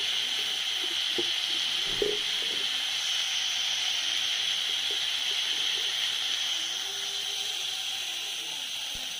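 Steady sizzling hiss of cut vegetables frying in hot ghee in an iron wok on a gas stove, with one light knock about two seconds in.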